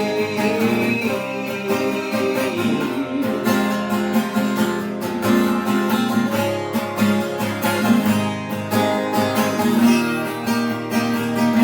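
Acoustic guitar playing chords in a steady rhythm, an instrumental break between the sung lines of a song.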